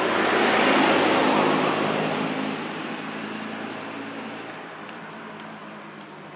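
A motor vehicle passing by: a rushing rumble with a faint engine hum that swells to its loudest about a second in, then slowly fades away.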